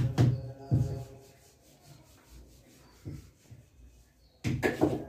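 Knocks and scraping of pans being handled on a gas stove while rotis are cooked: a few sharp knocks in the first second, a quiet stretch, then a quick burst of clatter near the end.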